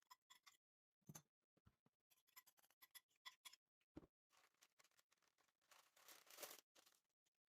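Very faint kitchen handling sounds: scattered small clicks and taps, two soft thuds, and a short scraping or rustling stretch about six seconds in.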